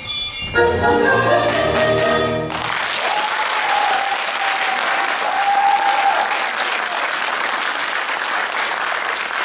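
Folk dance music with bright bell-like high notes ends about two and a half seconds in, and the audience breaks into steady applause.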